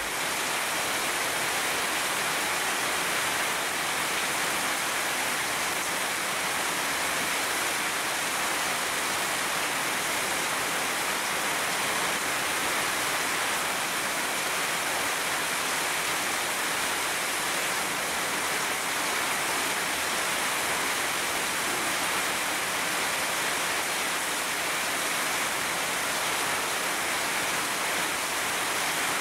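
Heavy rain pouring steadily on leafy trees, a dense, even hiss without let-up.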